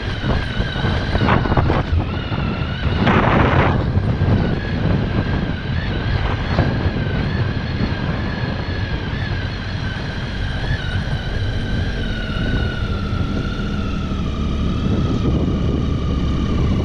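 Triumph Tiger XC motorcycle's three-cylinder engine running at steady revs on a rough dirt track, with wind buffeting the microphone, a few knocks from the ground and a short rush of noise about three seconds in. The engine note drops gradually in the last few seconds as the bike slows.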